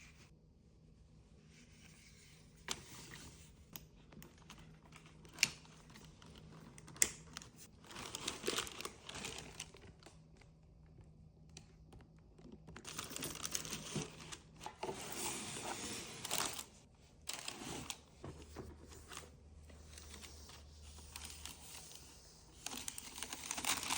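Paper packaging being handled in an unboxing: rustling and crinkling in bursts, with a few sharp clicks in the first few seconds, over a faint low hum.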